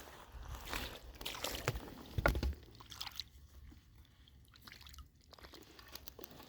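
Creek water sloshing and splashing as a found stone is rinsed off by hand, busiest in the first three seconds with the strongest splash about two seconds in, then quieter.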